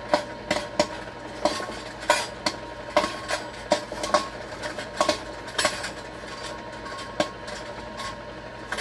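Popcorn kernels popping in the kettle of a kettle-style popcorn machine: irregular sharp pops, two or three a second, thinning out in the last few seconds as the batch finishes. A steady hum from the machine runs underneath.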